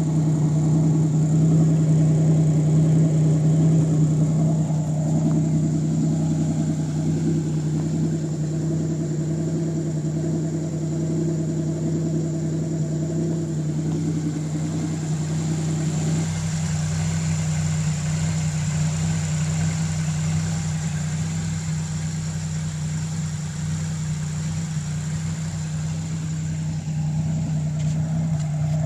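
Pontiac Fiero's swapped-in L67 supercharged 3800 V6 running at a steady high idle, with the misfire and high idle that the owner is showing. Its lower rumble thins out about halfway through, leaving a steady hum with a faint high whine over it.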